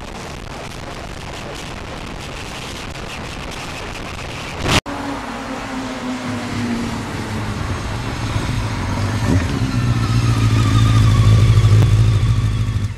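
Wind rush and engine noise from a moving motorcycle. Then, after an abrupt cut with a click about five seconds in, a sport motorcycle's engine running close by, getting louder toward the end.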